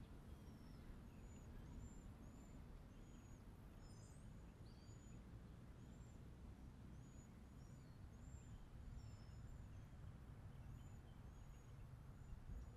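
Faint, high-pitched bird chirps, short notes repeating about once or twice a second, over a low steady outdoor rumble.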